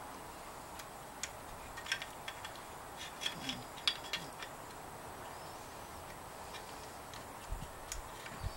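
Small sharp clicks and taps of a 1969 VW Beetle speedometer's metal parts being handled and pushed into the speedometer housing, mostly in a cluster during the first half, with a few more near the end.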